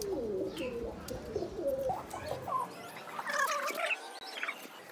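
Pigeons cooing in a low, wavering pitch, with higher, shorter chirping sounds about halfway through.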